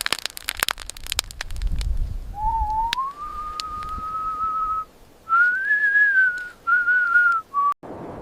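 A run of sharp clicks and crackles, then a clear whistle: one long note that slides up and holds, followed after a short gap by three shorter notes, ending abruptly.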